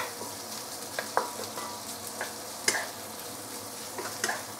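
Chunks of roast pork and garlic sizzling in oil, with the fat rendering out, while a spatula stirs them around a nonstick pan, scraping and knocking against it in a few sharp clicks.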